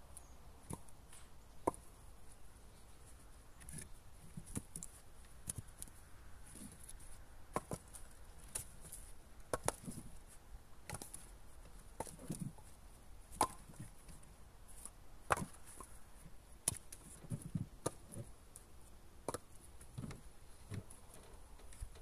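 Split birch firewood being unloaded by hand from a trailer and thrown onto a woodpile: hollow wooden clunks and knocks as logs land on other wood, at irregular intervals of about half a second to a second and a half.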